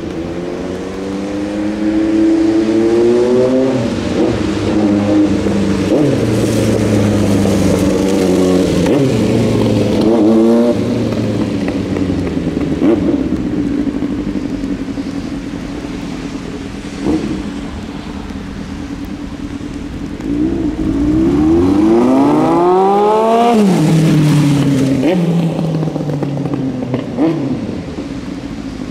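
Yamaha R1 sport bike's inline-four engine being ridden hard, revving up through the gears with its pitch climbing and dropping at each shift. In between it runs at a steady pitch with a few short throttle blips. The loudest part is a long rising rev in the last third that drops off suddenly.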